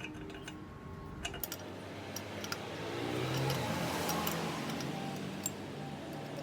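A few light metal clicks from a wrench on a bolt, then a passing road vehicle whose engine sound rises and sweeps in pitch about halfway through and stays up near the end.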